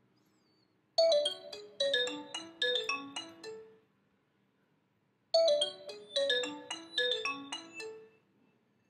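Nokia 603 smartphone ringtone: a short melody of quick chime-like notes, played twice with a pause of about a second and a half between.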